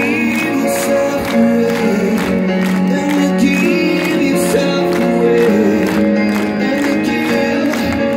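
Live amplified band music with a man singing through the stage sound system, heard from in the crowd.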